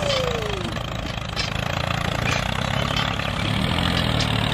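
A motor running steadily with a low rumble.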